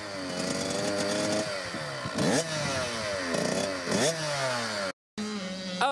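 Small youth motocross bike's two-stroke engine revving, its pitch sinking and climbing with several sharp throttle blips. It cuts off suddenly about five seconds in.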